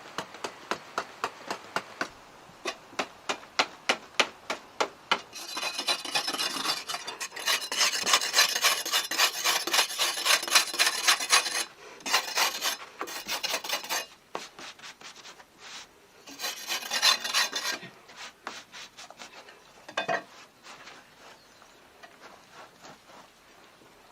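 A hand tool scraping or rasping wood in quick, even strokes, about three to four a second at first. It turns into a faster, louder stretch of scraping in the middle, then breaks into short bursts and scattered fainter strokes near the end.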